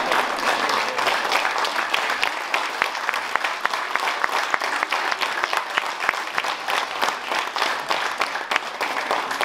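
Theatre audience applauding, a dense patter of hand claps. In the middle the clapping falls partly into an even beat of about three claps a second.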